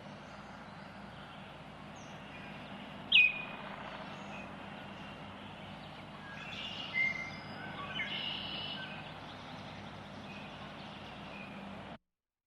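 Baltimore oriole calling: one loud, sharp note falling in pitch about three seconds in, then a few softer calls between about six and a half and nine seconds, over a steady background hiss.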